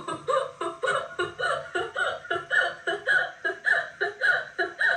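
A person laughing hard in a long, even run of short "ha" pulses, about three a second, without a pause.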